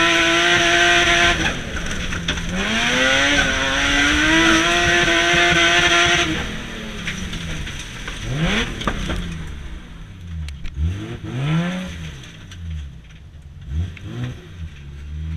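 BMW E36 Compact's M3 straight-six engine at full throttle, heard from inside the cabin, with an upshift about a second and a half in. About six seconds in the throttle closes, and the revs fall away with several short throttle blips at lower revs as the car slows.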